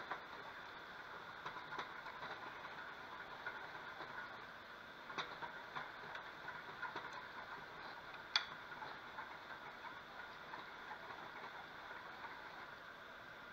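Butter sauce sizzling and crackling in a frying pan on the stove, with a few sharp clicks, the loudest about eight seconds in.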